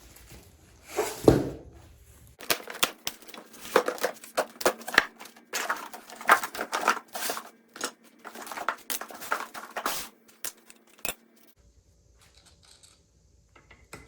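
Packaging being torn open and crinkled while unboxing wheel dollies: a thump about a second in, then a long run of tearing, crackling and rustling that stops about three seconds before the end.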